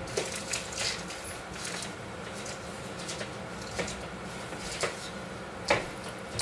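Scattered light knocks, steps and rustles of someone moving about a small room and handling a plastic-wrapped food tray, over a steady low hum.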